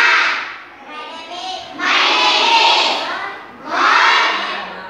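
A class of schoolgirls chanting words loudly in unison, three times, each about a second long, with a single girl's voice leading between the chants: call-and-response repetition of words pointed out on the blackboard.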